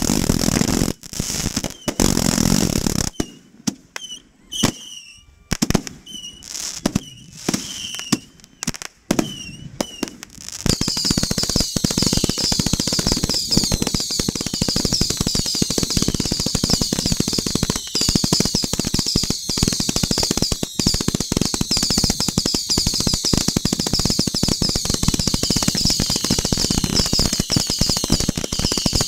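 Fireworks going off at close range: separate shell bursts with short whistles for the first ten seconds or so, then a dense, unbroken barrage of rapid bangs and crackling with many high whistles layered over it.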